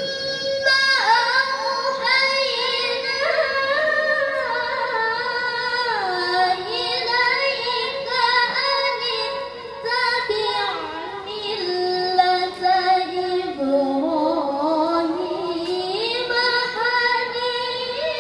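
Young female Quran reciter (qari'ah) chanting into a microphone in the melodic tilawah style: long held notes decorated with quick wavering runs, sinking to a low register about two-thirds of the way through and climbing back up near the end, heard through a PA loudspeaker.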